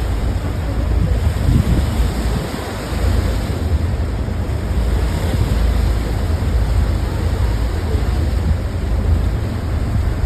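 Turbulent sea water rushing in the Naruto whirlpools, a steady churning wash, with heavy wind buffeting the microphone as a low rumble.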